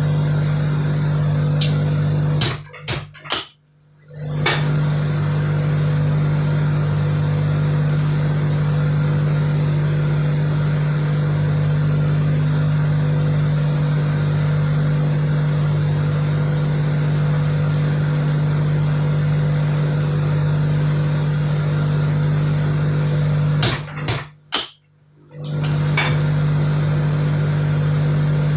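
Steady, loud drone of a ship's running machinery, dominated by a low hum. It drops out briefly twice, a few seconds in and again about five seconds before the end, with a few sharp knocks around each gap.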